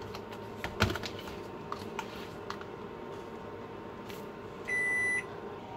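Kitchen handling sounds: a sharp knock about a second in and a few lighter clicks, then a single electronic beep about half a second long near the end.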